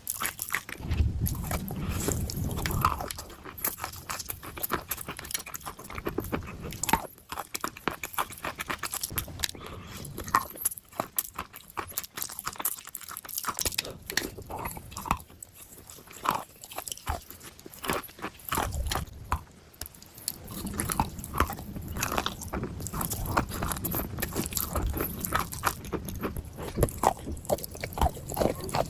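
Dry clay being bitten and chewed: a dense run of sharp, irregular crunches and crackles.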